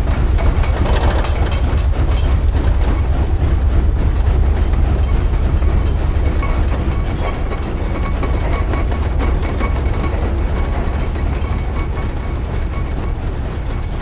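Steam locomotive and its train running, a heavy steady rumble with rapid rail clatter. A brief high-pitched squeal comes about eight seconds in.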